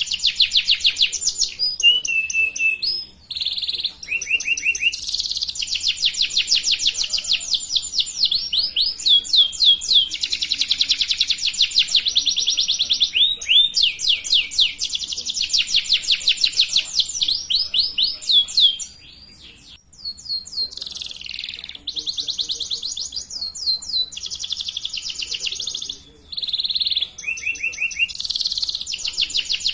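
Domestic canary singing a long song of fast, rapid trills, broken by a few short pauses.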